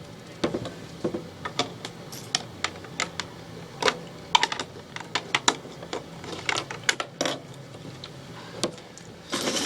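Plastic Lego pieces clicking and clattering as they are handled, pulled apart and sorted, in many short, irregular clicks. Just before the end comes a denser rattle, like hands stirring through a pile of bricks.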